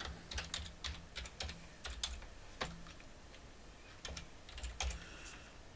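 Computer keyboard being typed on: sharp key clicks in short, uneven runs with small pauses between them.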